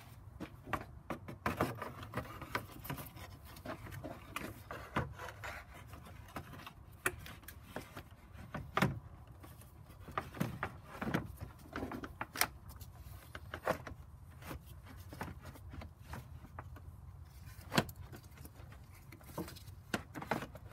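Irregular clicks, knocks and rubbing of plastic parts being handled as a radiator fan shroud and an intercooler hose are worked into place in an engine bay.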